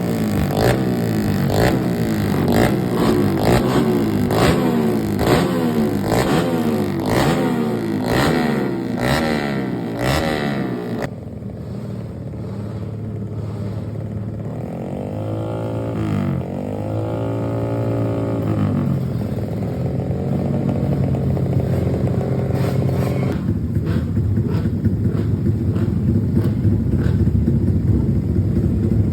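Yamaha MX King 150's single-cylinder four-stroke engine being revved in quick repeated blips for about ten seconds, then settling to a steadier run with one slower rev about halfway through.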